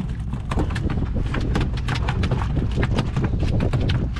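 A freshly caught halibut flopping on a boat deck: quick, irregular slaps of its body and tail against the deck, several a second, over a steady low rumble.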